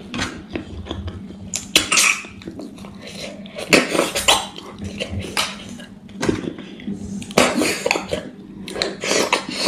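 Repeated loud slurps of curry-coated snails being sucked out of their shells, several bursts under a second long, between clinks of snail shells and fingers on a steel plate.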